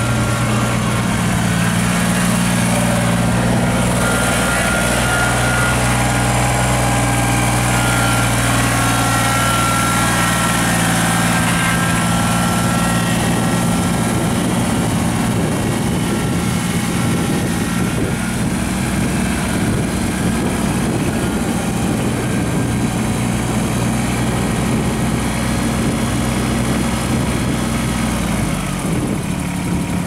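Kubota BX25 compact tractor's three-cylinder diesel running steadily as it drives, with a faint higher whine for several seconds in the first half; the engine slows near the end.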